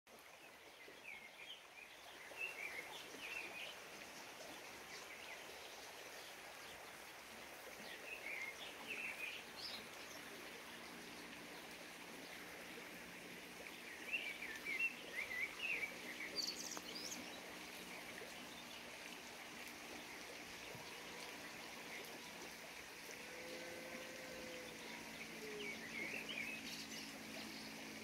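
Small songbirds singing quick chirping phrases in four short bursts over the steady rushing of a stream.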